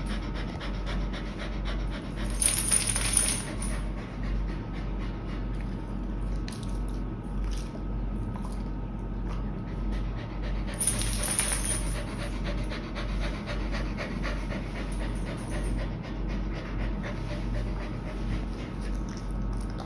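A dog panting steadily. About two seconds in and again about eleven seconds in comes a short burst of high, hissy sound, each lasting about a second.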